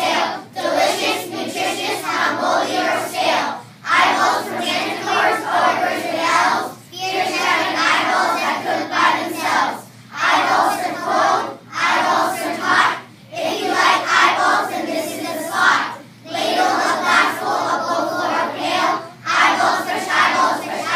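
A class of children speaking a poem together in unison, line by line, with a short pause between lines.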